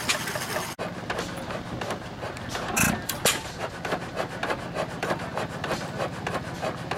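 Antique stationary gas engine running with a fast, even mechanical clatter of several clicks a second, and one louder pop about three seconds in. Just before it, for under a second, a small motor trike engine is heard idling.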